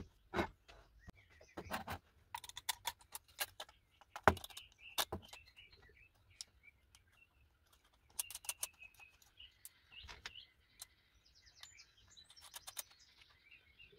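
Irregular light clicks and taps of metal parts as a vintage battery cell tester is handled and its round meter fitted into the steel probe frame. Birds chirp in the background.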